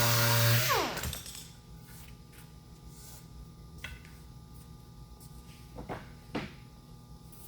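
Electric sander's motor running, then switched off under a second in, its pitch falling as it spins down. A few light knocks and clicks follow, about three of them.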